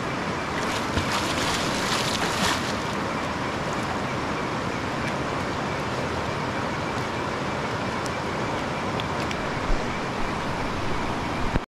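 Steady rush of flowing stream water, with a louder stretch of splashing about a second in that lasts around two seconds.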